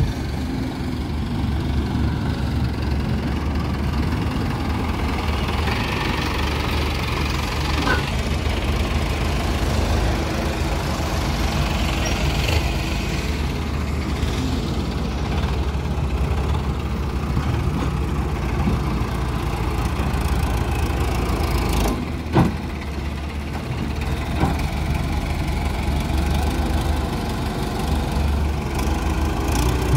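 Mahindra tractor diesel engine running steadily while the tractor pulls a trolley over mud. A single sharp knock sounds about two-thirds of the way through.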